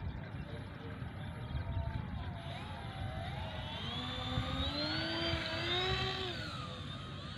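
Radio-controlled float plane's twin propeller motors whining through a takeoff run across water. The pitch climbs from about three seconds in as the throttle opens, is loudest a little later, then eases off near the end.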